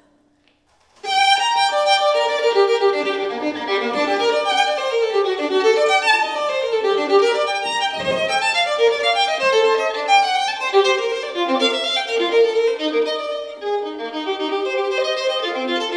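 Solo violin playing a fast passage of running notes, starting about a second in.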